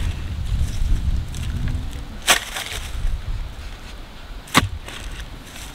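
Manual clamshell post hole digger jabbed into an old post hole lined with broken-up concrete: two sharp strikes about two seconds apart, over a low rumble.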